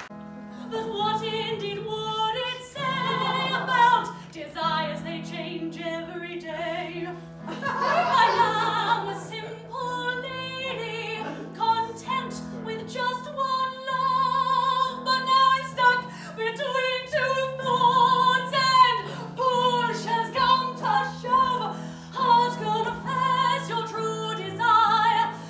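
A woman singing in an operatic style with vibrato, over held low accompanying chords that shift every few seconds.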